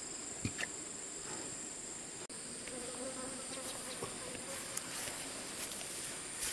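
Insects chirring steadily at a high pitch, growing louder about two seconds in, with a low wavering buzz for about two seconds in the middle and a few small clicks.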